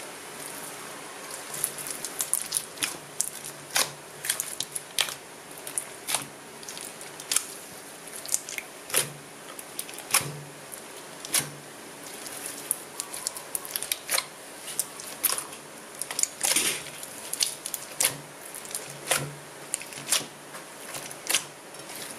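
Clear slime full of small foam beads being squeezed and kneaded by hand, making sharp, irregular wet clicks and pops, a few each second.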